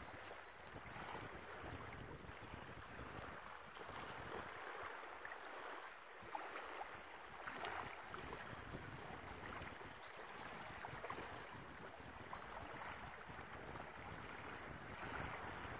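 Small waves lapping on the shore, with wind on the microphone: a steady wash and uneven low rumble.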